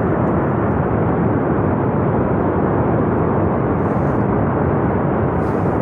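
Floodwater rushing through a swollen river channel: a loud, steady roar of water.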